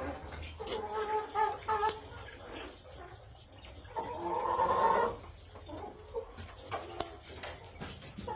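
German Salmon Faverolles chickens clucking and calling: a few short calls in the first two seconds, then one longer, louder call about halfway, and softer clucks after.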